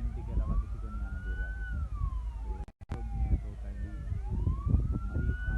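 Emergency-vehicle siren wailing, its pitch rising slowly and then falling, twice, over a low rumble. The sound cuts out for a moment near the middle.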